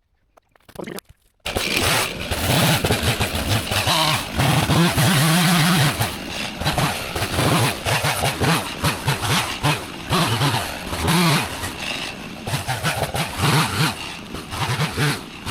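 Chainsaw limbing a felled tree. It comes in suddenly about a second and a half in and runs at high revs, the pitch rising and falling as it cuts, with quicker short revs near the end.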